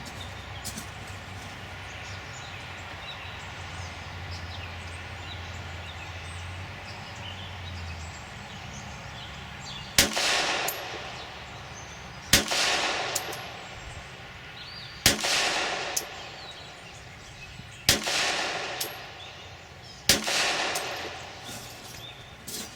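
Five 9mm pistol shots from a Glock 26 subcompact, fired one at a time about two to three seconds apart, each followed by a short echo. The first shot comes about ten seconds in, after a stretch of faint low hum and outdoor background.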